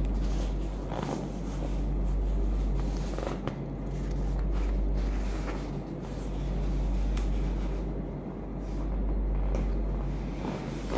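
Soft rustling and light bumps as a fabric travel neck pillow is handled and pulled over the head, over a steady low hum that swells and fades every couple of seconds.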